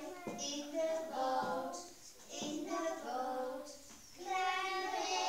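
A small group of young children singing a song together, with short breaks between phrases.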